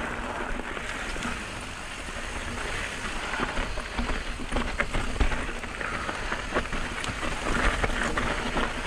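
Mountain bike tyres crunching over a loose, rocky dirt trail, with a steady run of small clicks and rattles from stones and the bike, over a low rumble.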